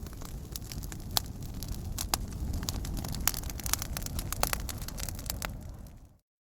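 Fireplace fire crackling: irregular sharp pops and snaps over a steady low rumble, fading out to silence near the end.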